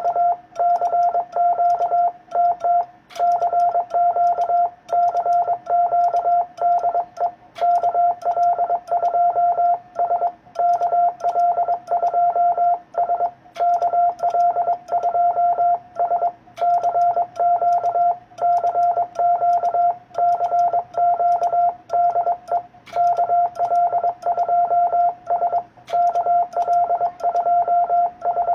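Amateur radio Morse code (CW) signal: a single steady mid-pitched tone keyed on and off in rapid dots and dashes, sending a CQ call for any station to answer.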